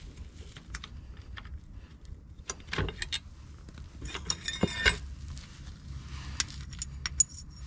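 Steel linkage pin and its retaining clip being worked out of a compact tractor's three-point linkage lower lift arm: metallic clinks and jangles, with a burst about three seconds in, a denser ringing cluster about four and a half seconds in, and light ticks near the end.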